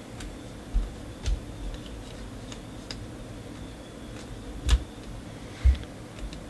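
Basketball trading cards being flipped through by hand: scattered light clicks and taps of card stock, a couple of them, about four and a half and five and a half seconds in, with a low knock.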